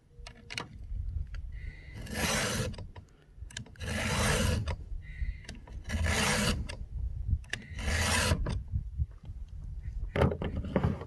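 A 2-in-1 chainsaw file rasping across a cutter tooth of a Stihl MS462C's chain in four even strokes about two seconds apart. Each pass sharpens the cutter and takes the depth gauge down at the same time.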